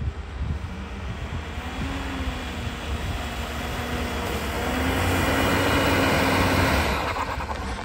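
4x4 vehicle's engine pulling under load off-road, its pitch wavering over a rushing noise that builds to its loudest about five to seven seconds in, then eases off near the end.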